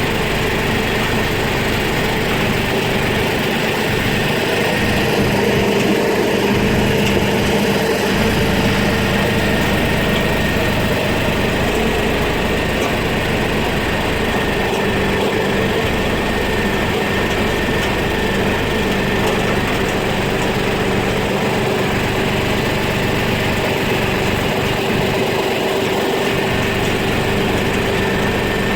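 An engine running steadily at a constant speed, with an even hum.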